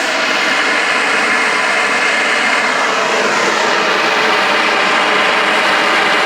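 Homemade venturi propane forge burner running with a steady, loud rush of flame, its ball valve barely cracked open and the flame burning stable.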